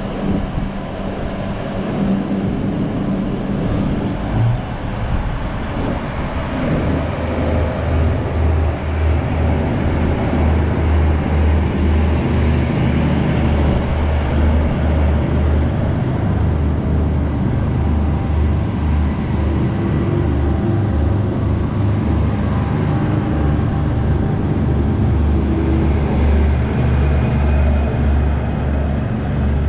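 ADL/ADC class diesel multiple unit's diesel engines running under power as the railcar set pulls away and passes close. A deep pulsing drone builds from about six seconds in and holds steady.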